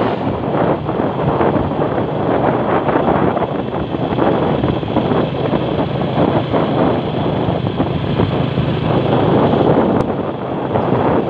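Steady wind rush buffeting the microphone, with the running of a vehicle moving along a paved road.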